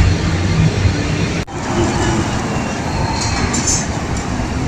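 City street traffic noise: a steady, loud rumble of passing vehicles, with a short dropout about a second and a half in.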